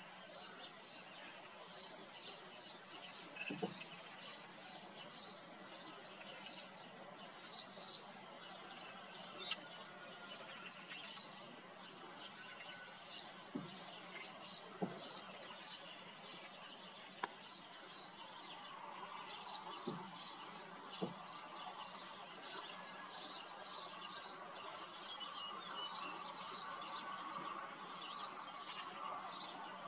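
A small bird repeating a short, high chirp about two to three times a second, with a few pauses.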